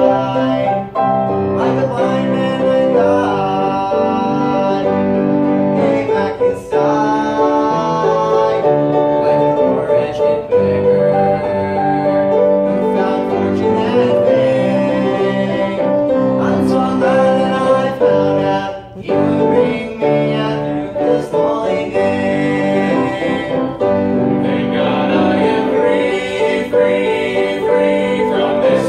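Male vocal trio singing a gospel song into microphones over instrumental accompaniment, with the voices in harmony.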